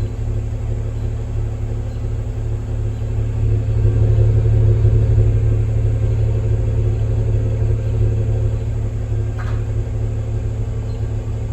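2023 Range Rover's inline-six engine running at its exhaust, fully warmed up: a steady low rumble with an uneven pulse, which the owner hears as a misfire that also shakes the car. It grows a little louder about four seconds in, then eases back.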